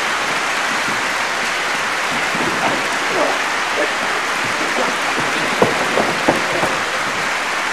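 Steady applause from a crowd, with a few faint shouts and a couple of sharper claps about five and a half to six and a half seconds in.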